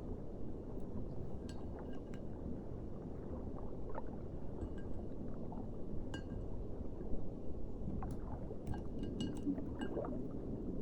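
Water beads being stirred and squished by hand: a steady wet, squelchy rustle with scattered light clinks that ring briefly, bunched in a few clusters.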